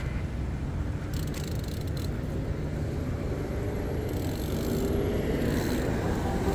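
Steady low rumble of riding a BMX on asphalt: wind on the chest-mounted microphone mixed with the tyres rolling on the road.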